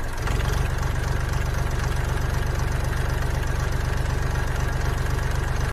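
Tractor engine idling with a steady, even chugging pulse.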